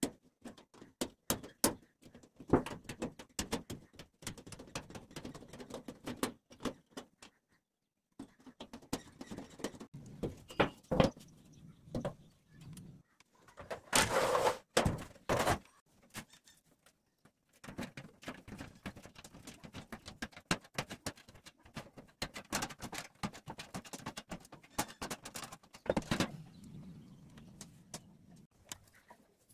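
Empty tinplate mustard oil tins and flattened tin sheet being handled: irregular knocks, clanks and light rattles of thin sheet metal, with a louder stretch of scraping and rattling about halfway through.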